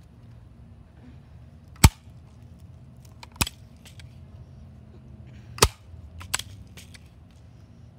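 Crosman Legacy 1000 multi-pump air rifle being pumped: four sharp clacks from the pump lever being worked, the loudest about two seconds and five and a half seconds in.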